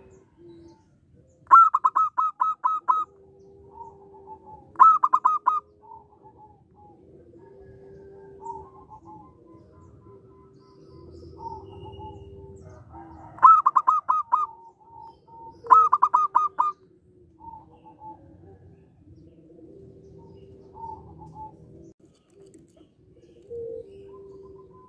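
Zebra dove (perkutut) song: four bursts of rapid, clipped cooing notes, about four to eight notes each, two in the first few seconds and two around the middle. Softer, lower drawn-out notes fill the gaps between.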